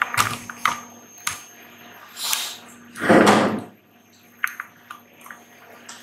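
Handling noise of objects on a wooden table: a few light clicks and knocks, with a louder scrape-like noise lasting under a second about three seconds in.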